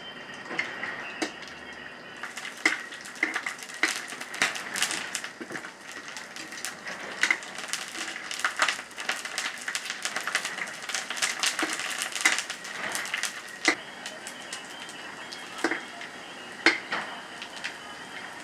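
Kitchen handling sounds: irregular clicks and knocks of utensils against dishes, busiest in the middle.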